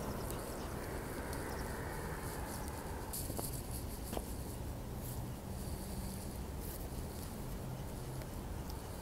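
Quiet outdoor background: a steady low hum under faint hiss, with a couple of light clicks a little past three and four seconds in.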